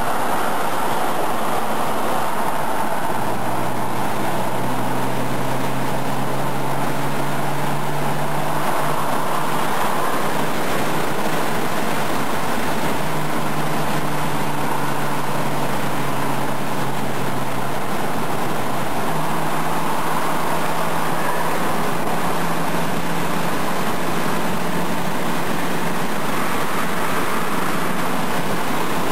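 Steady road, tyre and engine noise inside a car cruising at highway speed. A low hum under it shifts pitch a few times.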